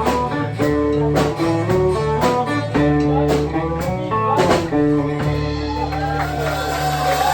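Live band music in a blues style: guitar notes picked over a steady bass line, with a long bending, wavering note near the end.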